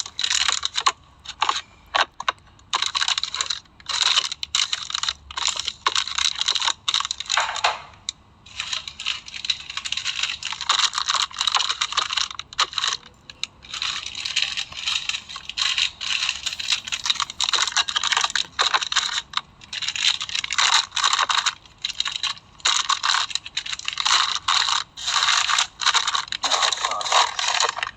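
Packaging being handled: wrappers and packets crinkling and rustling in quick irregular crackles, with short pauses now and then.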